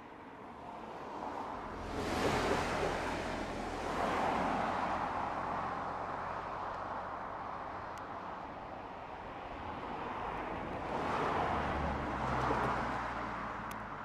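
Road vehicles passing twice, tyre and engine noise swelling up and fading away, with a steady low engine hum beneath.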